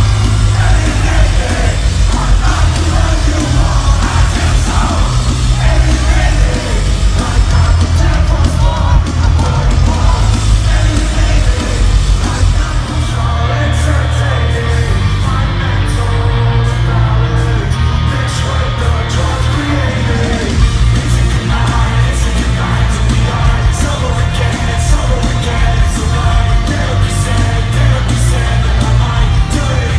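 Live rock concert music played loud, with a heavy, steady bass and a voice singing and yelling over the band.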